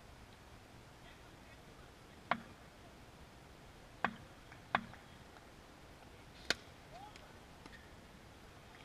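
Four sharp, separate knocks of a cricket bat, spread over several seconds: the bat tapped on the hard court surface at the crease, then a brighter crack as it meets the ball.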